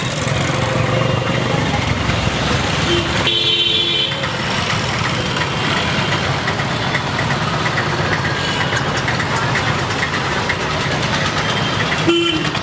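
Steady street traffic noise, with a vehicle horn sounding briefly about three seconds in and again near the end.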